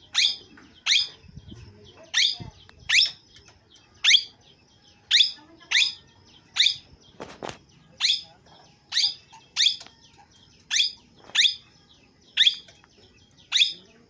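Young parakeet calling over and over in short, sharp, high calls, about one a second and sometimes in quick pairs.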